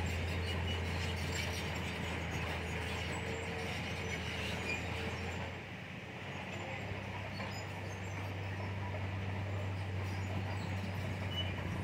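Komatsu D31PX crawler bulldozer's diesel engine running with a steady low drone as it works. The engine note dips briefly a little past halfway, then comes back slightly higher.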